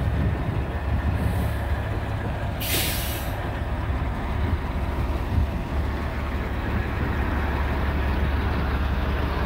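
Kenworth W900L semi truck's diesel engine idling with a steady low rumble, with a short hiss of released air about three seconds in.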